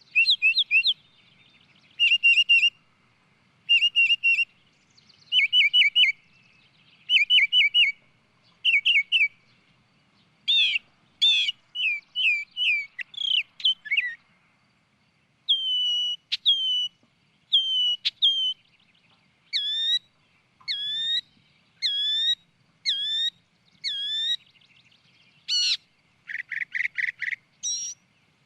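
A songbird singing clear whistled phrases, one every second or two, switching between several different phrase types, with a quick trill near the end.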